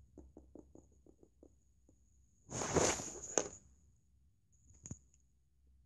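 Small plastic doll figure tapped along a wooden floor in quick little steps, about five taps a second, as pretend footsteps. Then a brief noisy rustle about two and a half seconds in, and a couple of sharp clicks.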